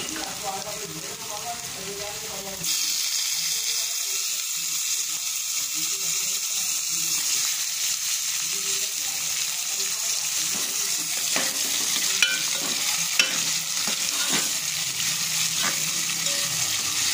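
Chopped tomatoes and onion-garlic-ginger masala sizzling in hot oil in a metal pot while being stirred with a steel spoon. The sizzle turns louder about three seconds in, and the spoon clinks against the pot a few times in the second half.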